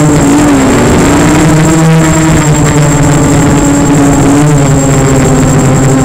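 Motor and propeller of an FPV radio-controlled model aircraft heard from its onboard camera: a loud, steady hum that wavers slightly in pitch, dipping a little about half a second in.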